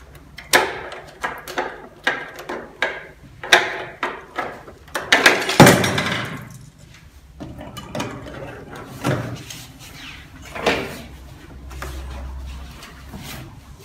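Plastic and metal parts of a REEBABY child car seat clicking, clunking and rattling as they are handled: a crossbar is taken off the frame and the seat back is swung upright. The loudest clatter comes about five to six seconds in.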